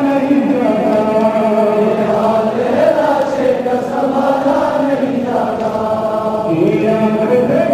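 Large group of men chanting a Muharram mourning lament (noha) together in unbroken sung lines.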